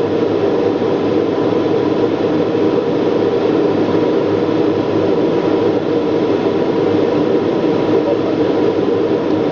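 Steady drone of engines and rushing air heard inside an aircraft cockpit during the approach to land, with a thin steady high tone running through it.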